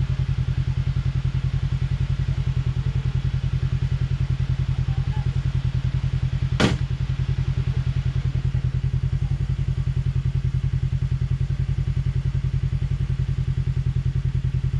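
Side-by-side UTV engine running steadily at a low idle, an even pulsing drone with no revving. A single sharp knock cuts through about six and a half seconds in.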